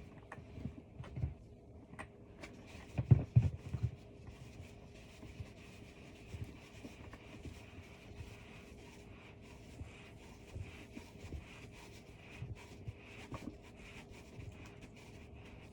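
Faint scattered clicks and knocks of cat-tree parts being handled while a screw is worked in by hand, with a few louder low thumps about three seconds in. A faint steady hum lies under it all.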